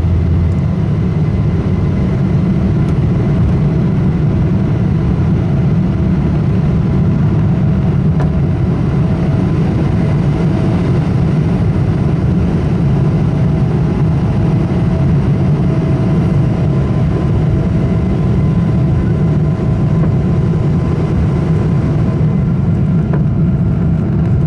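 Boeing 777-200ER cabin noise during takeoff and climb-out: the twin jet engines make a loud, steady roar through the fuselage, with faint steady whining tones over it. A deeper rumble falls away about half a second in, and another faint, higher tone joins near the end.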